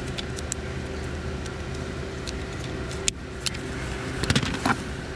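Hard plastic interior trim being handled: scattered light clicks and rattles, one sharp click about three seconds in and a cluster of louder rattles near the end, over a steady low hum.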